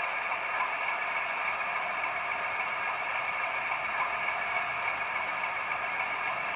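Sound decoder in a model class 31 diesel locomotive playing a steady diesel engine idle through its small speaker, thin and lacking bass.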